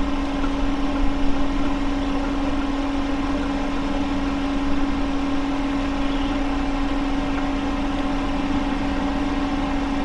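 Steady machine hum at one constant pitch over an even rumble, unchanging throughout.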